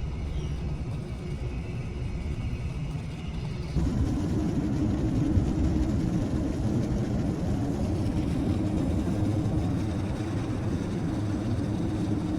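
Steady vehicle running noise, a low rumble and whir. It jumps suddenly louder about four seconds in and then holds steady.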